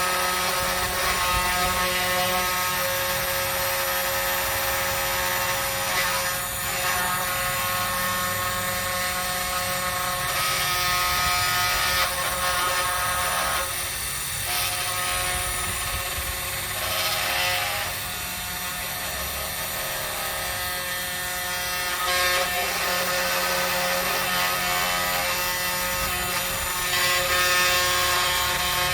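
CNC3018 desktop CNC machine running: its spindle motor gives a steady whine of several tones, and a cutting hiss swells and eases every few seconds as the bit works.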